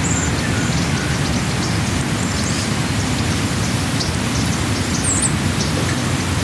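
Steady rushing noise, heaviest at the low end, with brief faint bird chirps above it.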